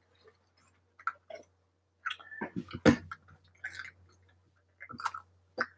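Scattered small clicks and crinkles of fast-food packaging and dipping-sauce cups being handled at the table, mixed with chewing.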